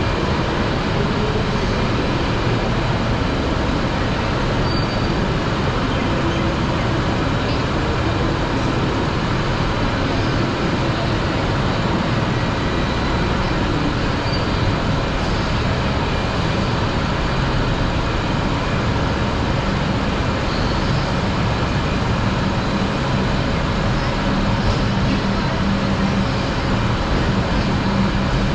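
Steady rumble of vehicles and trains at a busy railway station. A low steady engine hum grows louder in the last few seconds.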